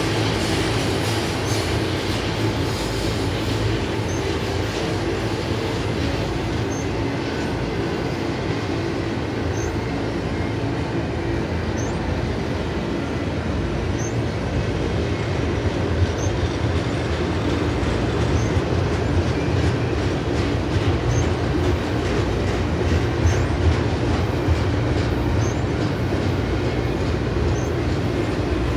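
Double-stack container train of loaded well cars rolling past: a steady rumble of steel wheels on rail with clicking and rattling from the cars, and a faint high chirp recurring about once a second.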